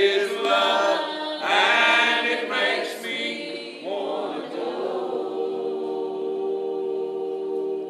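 A small group of voices singing together in harmony, then settling about halfway through into one long held chord that closes the song.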